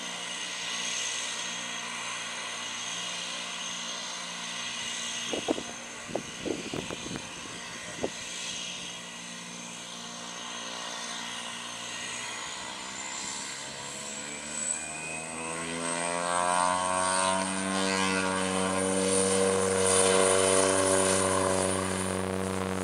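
Cessna 208B Grand Caravan's single PT6A turboprop running with a steady high turbine whine, then spooling up for takeoff from about halfway: the whine rises in pitch and the propeller drone grows louder and higher. A few sharp clicks about a quarter of the way in.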